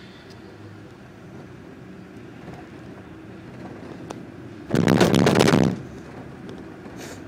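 POMA gondola cabin's grip running over the sheave train of a support tower, heard from inside the cabin: about a second of loud rattling clatter about halfway through, over a steady low hum of the moving cabin.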